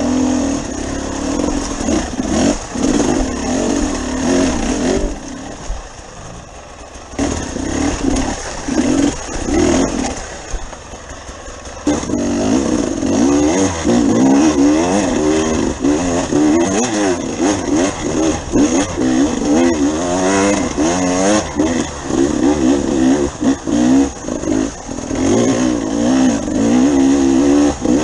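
Dirt bike engine revving up and down as it is ridden, easing off for several seconds about a third of the way in, then revving hard and rising and falling quickly through the rest.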